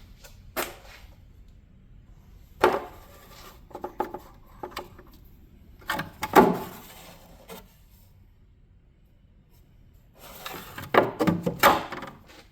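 Handling noise: a few irregular knocks and scraping rubs, loudest about six seconds in and in a cluster near the end.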